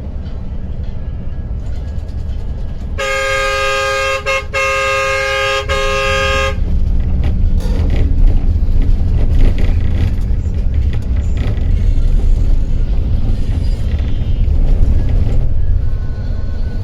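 A loud two-tone vehicle horn sounds for about three and a half seconds, a little after the start, broken twice by brief gaps. Under it runs the steady low rumble of a moving bus's engine and road noise.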